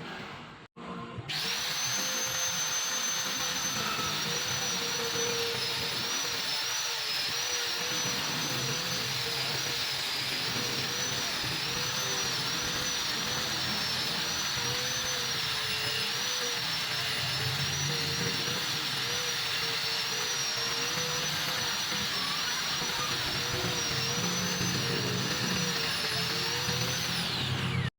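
High-speed rotary tool running with a steady high whine that wavers slightly in pitch. It starts about a second in and cuts off just before the end.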